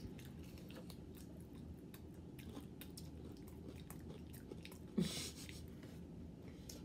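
Quiet chewing of a waffle bowl with ice cream, with soft mouth clicks. About five seconds in there is one short, louder sound with a falling pitch, like a brief hum.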